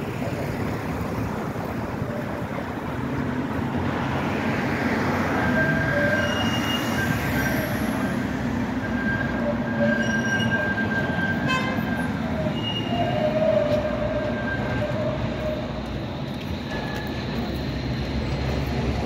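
Blue ZET TMK 2200 low-floor tram's wheels squealing on curved track as it approaches, with high squeals that come and go over a steady rumble of the tram and street.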